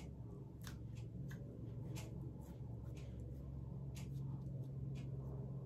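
Faint, scattered light ticks and soft rubbing from hands working face oil between the palms and onto the skin, over a steady low hum.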